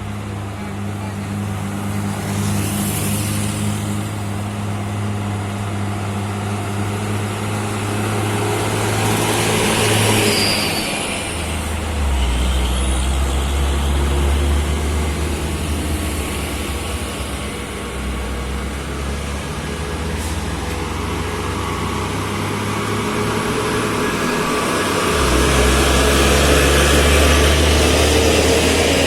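Heavy diesel truck engines pulling up a steep climb under load, the engine note dropping to a deeper pitch about eleven seconds in and swelling louder again near the end.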